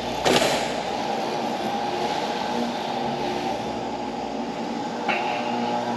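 Steady mechanical hum with held low tones, broken by a sharp knock near the start and another about five seconds in.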